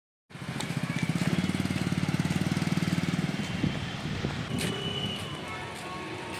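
A motorcycle engine running close by, its rapid firing beats loud for about three seconds before fading into steadier background traffic noise.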